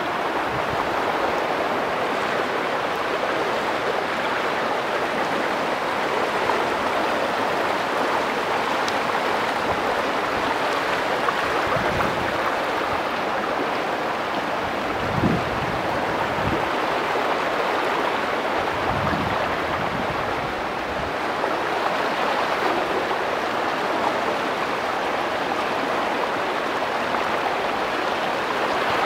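Muddy floodwater rushing through a flooded street, a steady rushing noise, with a brief louder knock about halfway through.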